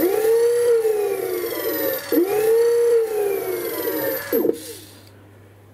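The scooter's electric hub motor, run by a Phaserunner sine-wave controller, whining as the throttle is blipped twice. Each time the pitch rises sharply and then glides slowly down as the wheel coasts, and the sound dies away near the end.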